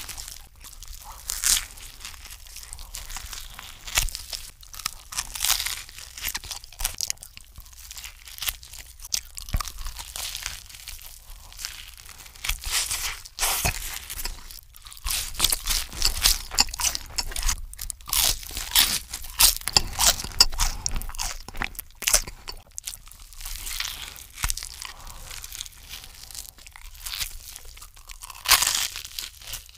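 Close-miked crunching and chewing of a toasted chicken parmesan sandwich: the crisp toasted bread and breaded chicken cutlet crackle in quick, irregular crunches. A fresh loud bite comes near the end.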